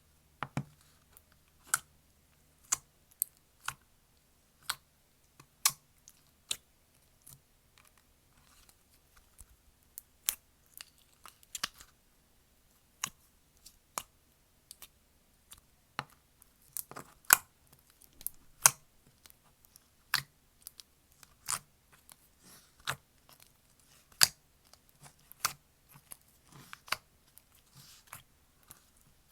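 Slime being handled, giving sharp clicks and pops at irregular intervals, about one a second, coming thicker in places.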